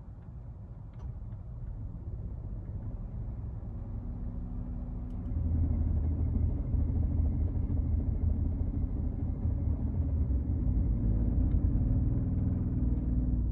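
Nissan Note (E12) running with a low rumble that gets clearly louder about five and a half seconds in, then holds steady with a hum. This is the abnormal noise that was traced to a failing radiator fan motor.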